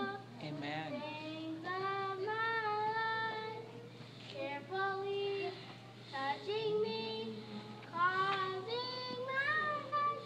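A group of children singing a song together, the melody moving in held notes.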